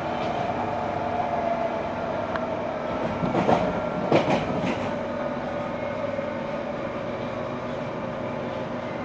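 London Underground 1995 Stock train running at speed, heard from inside the carriage, with a steady drone. A few sharp wheel clacks over the rails come about three and a half to four and a half seconds in and are the loudest sounds.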